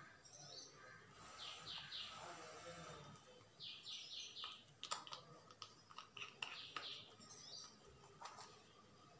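Faint bird chirping: three runs of three or four quick high chirps, with a few soft clicks in between.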